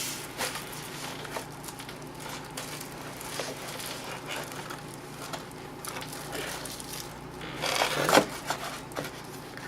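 Cardboard box and foam packing being handled: scattered light clicks and rustles, with a louder crinkling rustle about eight seconds in.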